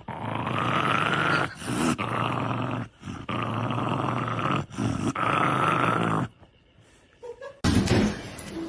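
A dog growling in four long, drawn-out bouts with short breaks between them. A brief loud noise follows near the end.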